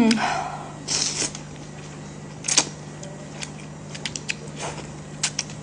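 A person eating noodles with chopsticks: a couple of short slurps, then a scatter of quick wet mouth clicks and smacks while chewing.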